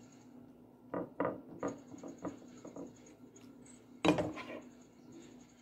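Serving spoon scooping ground-meat sauce from a pan into a glass baking dish: a run of soft knocks and scrapes of the spoon against pan and dish, then one louder knock about four seconds in.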